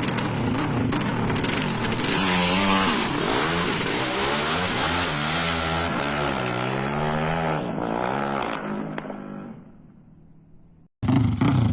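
A 380 cc drag-tuned Honda Sonic motorcycle engine revving, then pulling hard, its pitch climbing and dropping again and again as it shifts through the gears before it fades away. After a brief cut-out near the end, a loud engine sound comes back in abruptly.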